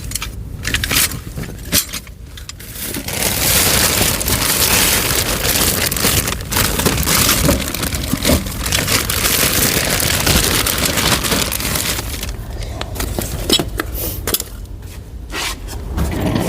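Rustling, crackling and scraping of things being handled and rummaged through, densest for several seconds in the middle, with scattered clicks and knocks.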